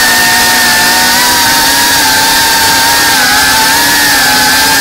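FPV quadcopter's electric motors and propellers whining loudly at a steady throttle, the pitch wavering only slightly.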